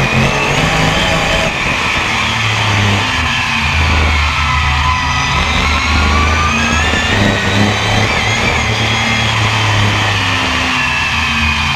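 BriSCA F1 stock car's V8 engine heard on board while racing, revving with its pitch rising and falling several times through the laps. Background music with a steady bass line runs underneath.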